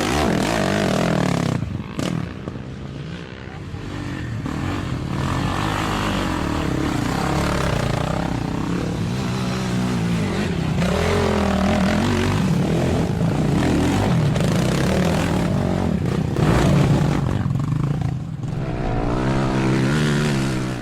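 Quad (ATV) engine running and revving, its pitch rising and falling with the throttle. The engine drops off about two seconds in and builds again, with a rising rev near the end.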